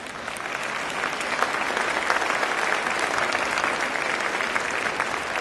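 Audience applauding: many people clapping together, the clapping swelling over the first second and then holding steady.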